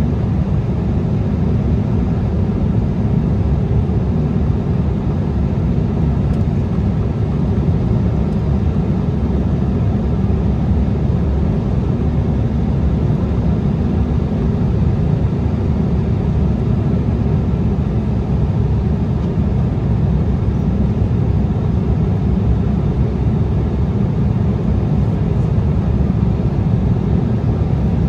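Cabin noise inside an Embraer ERJ-175 airliner on approach: a steady, deep rumble of its wing-mounted GE CF34-8E turbofan engines and the airflow past the fuselage, unchanging throughout.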